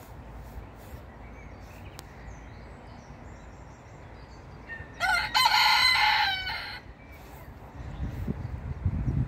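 Barnevelder rooster crowing once, about five seconds in, a single crow lasting nearly two seconds. A low rumbling noise starts near the end.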